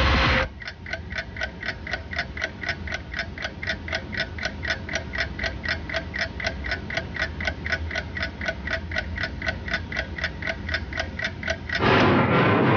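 Clock ticking steadily, about four to five ticks a second. Music comes in near the end.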